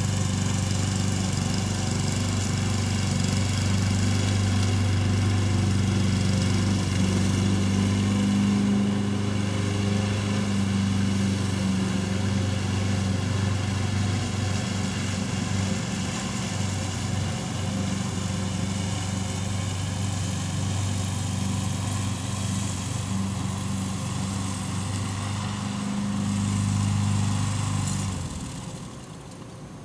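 Engine running steadily with a low hum, then cutting off sharply near the end, leaving only a faint hiss.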